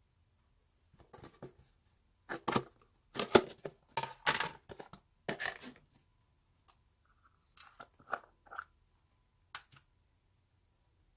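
Plastic slime jars and a clear plastic tub being handled and set down on a wooden tabletop: a run of short clacks and knocks, thickest in the first half and lighter later.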